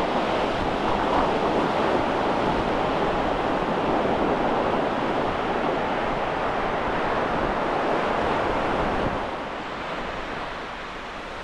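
Small waves washing in over shallow, flat sand at the water's edge, with wind on the microphone; a steady wash that drops noticeably quieter about nine seconds in.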